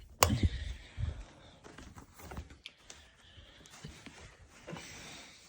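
Handling noise from an upright vacuum cleaner and its attachments being moved: a sharp click just after the start, then scattered knocks and rustling.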